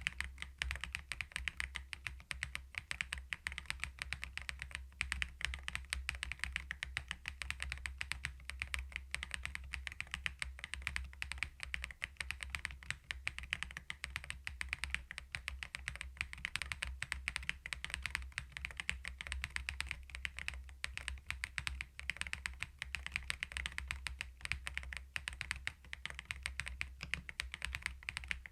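Typing on a CoolKiller VIVID67 full-aluminium keyboard fitted with its stock Peach switches: a fast, continuous stream of keystrokes.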